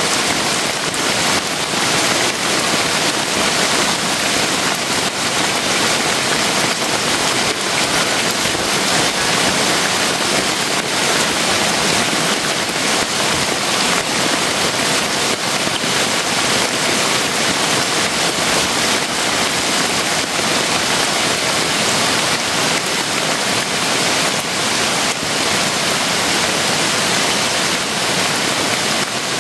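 Rain falling steadily on bamboo forest and a thatched hut: a loud, even hiss with no let-up.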